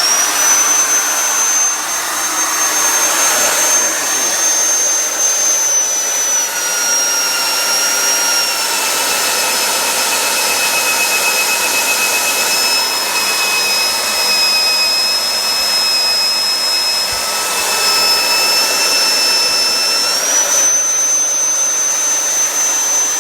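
Magnetic drill motor running with a steady high whine. About six seconds in the pitch drops and stays lower while the annular cutter bores into the steel, then rises again near the end as the cutter breaks through, and the motor is switched off, its whine falling away.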